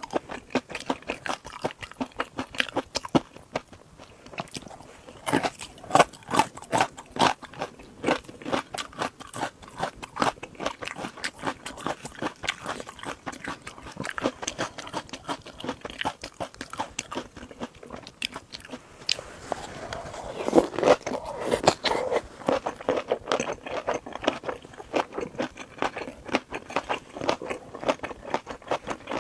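Chewing and biting of a crunchy seafood dish: a dense, irregular run of crisp crunches and wet mouth clicks, louder and fuller for a few seconds around twenty seconds in.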